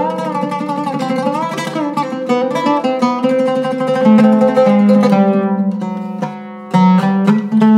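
Zeryab Iraqi oud with a cedar soundboard and Aurora strings, played solo with a plectrum. It begins with a quick run of rapidly picked notes, moves into longer held low notes, and after a brief quieter moment comes a loud struck note near the end.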